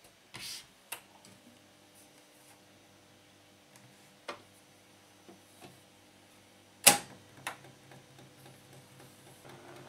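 Clicks and clunks from a 1963 Geloso G257 valve reel-to-reel tape recorder as its control keys are pressed and its lid is opened, the loudest clunk about seven seconds in. Under them a faint steady hum from the switched-on recorder, a little stronger after that clunk.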